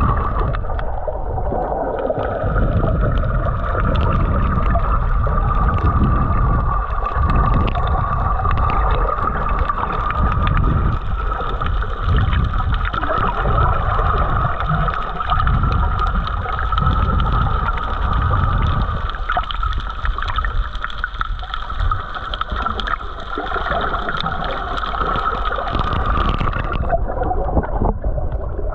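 Underwater sound picked up by a camera in the water: water surging and swirling with a steady whine throughout, whose higher part cuts off near the end.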